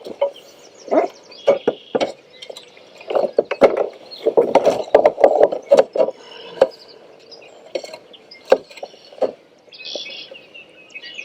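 Irregular knocks and clunks of gear being handled in a fishing kayak, some sharp. Birds chirp faintly behind them, more clearly near the end.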